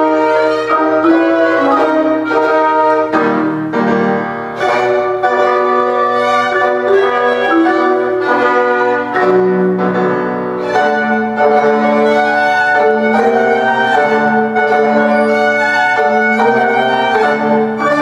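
Small live chamber ensemble playing silent-film music: violin carrying a melody over upright piano, with trombone, clarinet and mallet percussion.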